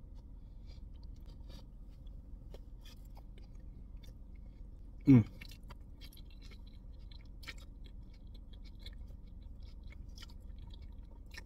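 A person chewing food close to the microphone, a fried dumpling and glass noodles, with small wet clicks and crunches throughout. A brief loud vocal sound from the eater about five seconds in.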